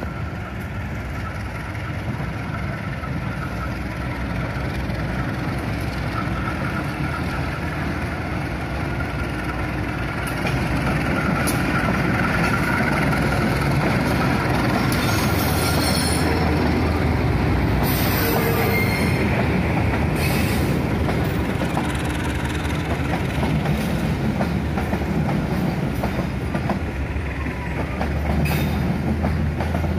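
Passenger train approaching and running past along the track, its rumble growing louder about a third of the way through. Its wheels squeal on the rails for several seconds around the middle, with a rhythmic clatter of wheels over rail joints.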